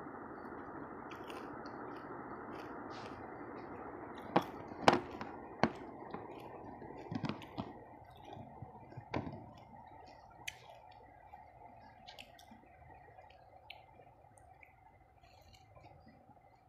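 Eating sounds: soft chewing and wet mouth clicks, with a few sharp clicks and taps about four to nine seconds in, the loudest about five seconds in, as food is picked up from a plastic tray. A steady background noise underneath fades out about halfway.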